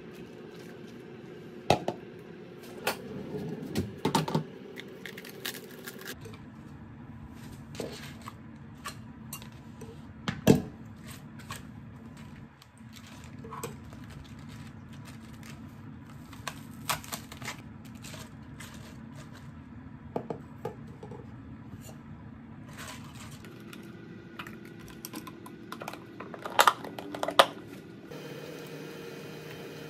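Kitchen clatter of utensils being handled: a plastic cutting board, a knife, a pot and a plastic container set down and moved, giving scattered knocks and clicks over a low steady hum. The sharpest knock comes about ten seconds in, and a quick cluster of clacks comes near the end.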